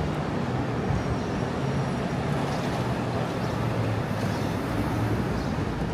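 Steady city traffic noise: a continuous low hum of vehicle engines and tyres on the streets around the walk.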